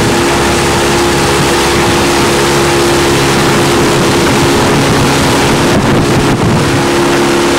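Boat motor running steadily under way at cruising speed, a constant drone with wind rushing over the microphone.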